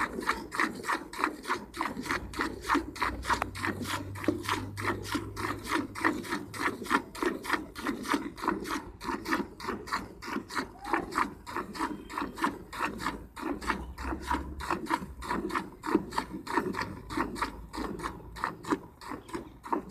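Cow being milked by hand: jets of milk squirting into a pail in a steady rhythm of about four squirts a second.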